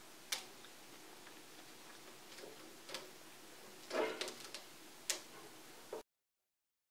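Faint, scattered clicks and light rustles of dried apple slices being picked off a plastic mesh dehydrator tray by hand, with the longest cluster about four seconds in; the sound cuts off to silence about six seconds in.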